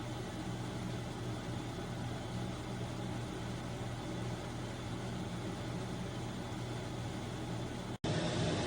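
COSORI Smart 12-in-1 air fryer toaster oven running while it toasts: a steady hum of its fan with a low tone under it. The sound cuts out for an instant near the end and comes back a little louder.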